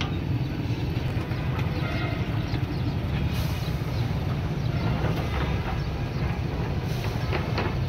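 Steady low mechanical rumble, with a few light metallic clinks about five seconds in and again near the end.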